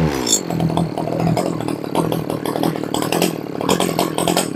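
Robin NB2200 two-stroke brushcutter engine dropping from high revs to idle in the first moments, then idling with an uneven beat. It cuts off suddenly near the end.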